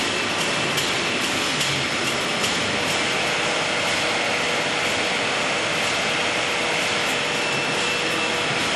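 Ovobel CEM432 egg-breaking machine and its egg conveyors running steadily, with light clicking from eggs and trays moving along the line, busiest in the first few seconds.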